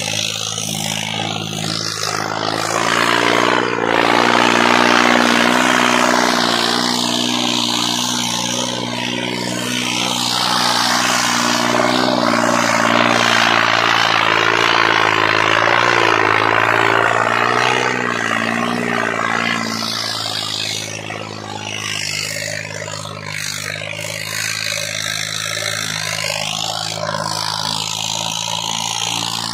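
Tractor diesel engine running steadily under heavy load while dragging a weighted disc harrow through soil. It grows louder a few seconds in and eases off after about twenty seconds.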